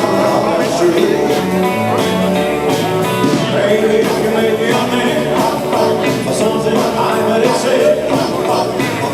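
Live band playing 1950s-style rock and roll with a singer, steady and loud.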